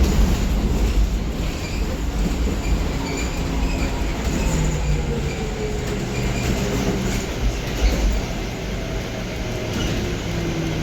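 BYD D11B electric articulated bus in motion: a low road rumble with the electric drive's faint whine sliding down in pitch, as an electric motor does when the bus slows.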